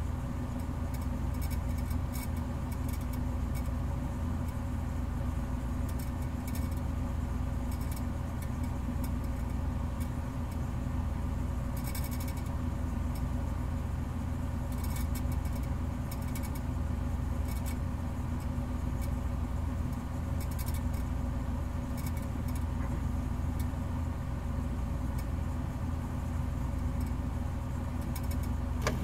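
A steady low hum with several fixed tones above it and scattered faint clicks, unchanging throughout.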